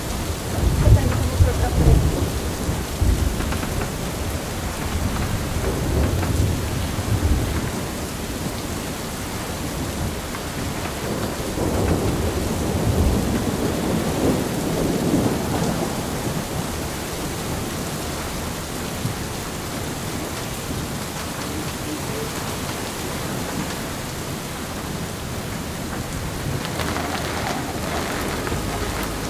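Thunderstorm: steady heavy rain with rolling thunder, the rumbles loudest in the first few seconds and swelling again around the middle.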